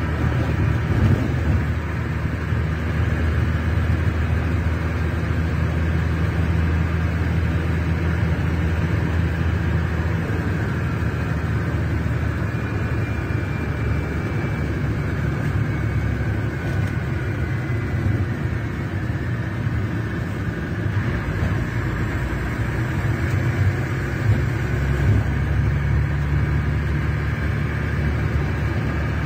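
Scania K380's rear-mounted DC12 inline-six diesel running in a steady drone. It eases back in the middle and builds again after about twenty seconds.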